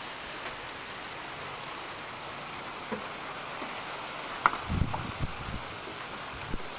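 Steady hiss of summer rain falling, with a few low thumps and a sharp click about two-thirds of the way through.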